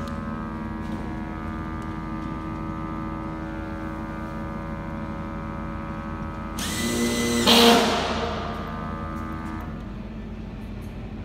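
A GRABO portable electric vacuum lifter's pump hums steadily and stops near the end. About seven seconds in, a cordless drill whirrs loudly and briefly as it drives a fixing into a drywall sheet.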